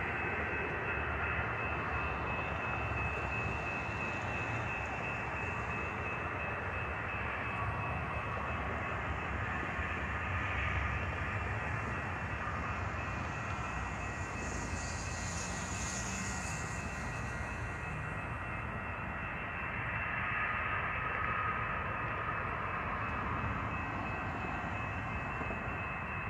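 Steady distant rumble with a constant high-pitched whine over it, and a hiss that swells and fades about fifteen seconds in.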